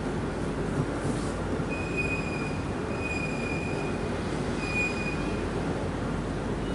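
Three high-pitched, steady squeals, each about a second long, over a constant background noise.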